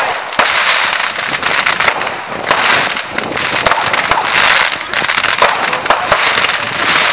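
Fireworks going off: a constant hissing and crackling that swells and fades every second or two, scattered with many sharp pops and cracks from small aerial bursts.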